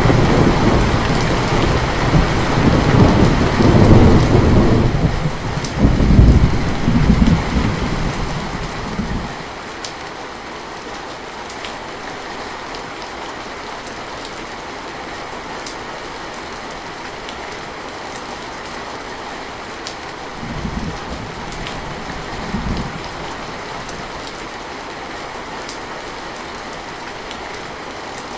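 Steady rain hissing, with a long roll of thunder over the first nine seconds or so. After that the rain goes on alone, apart from two short low rumbles of thunder about two-thirds of the way through.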